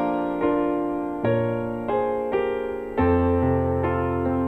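Slow gospel ballad's piano interlude: sustained chords and single notes struck about every half second, each fading before the next, with a deeper bass note coming in twice.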